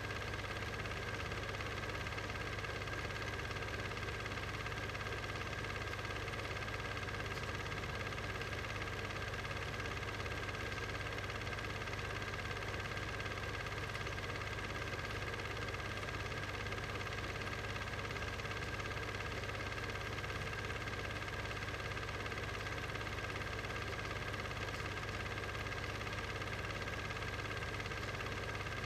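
A steady mechanical drone with a constant hum and hiss that does not change.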